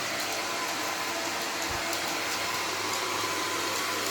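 Robot vacuum cleaner running with a steady whir.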